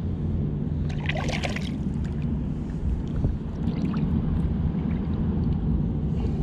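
Water splashing and sloshing as a small carp is drawn in and landed, with a short splashy burst about a second in, over a steady low rumble.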